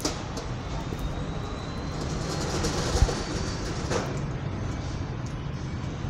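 A steady low rumble of background noise that swells around the middle, with a single sharp thump about three seconds in.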